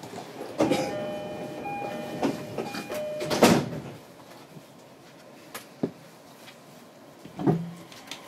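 Door chime of a JR East E231-series commuter train: a repeating pattern of two alternating tones for about two seconds, ending in the loud thud of the sliding doors shutting about three and a half seconds in. A couple of single knocks follow later.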